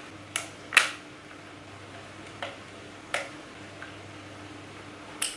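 Small sharp clicks of tweezers and plastic, about six at irregular intervals with the loudest about a second in, as wire connectors are worked loose inside an opened DJI Phantom remote controller.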